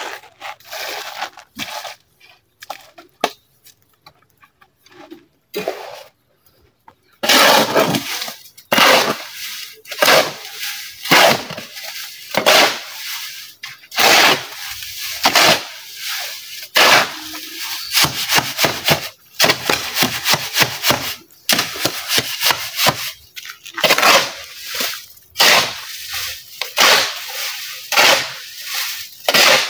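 Square steel shovel scraping and turning wet concrete mix on a mixing board, in sharp strokes about one to two a second that start about seven seconds in. Before that there are only a few scattered clicks and knocks.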